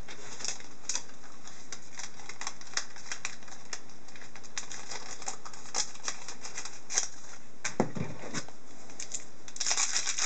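Hockey trading cards and their packaging being handled: a run of quick, light clicks and crinkles, which grow busier near the end.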